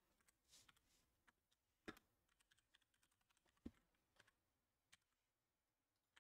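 Faint computer keyboard typing: a few scattered, irregular key clicks, the sharpest a little past the middle.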